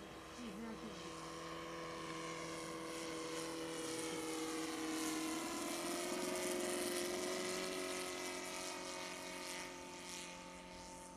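RC model airplane's 53cc four-stroke gasoline flat-four engine and propeller running steadily in flight. It grows louder as the plane passes, with the engine note rising slightly about halfway through, then fades away.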